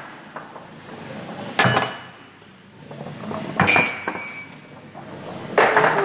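Wooden balls rolling down a wooden ramp run and striking small metal bells, which ring out; three strikes about two seconds apart.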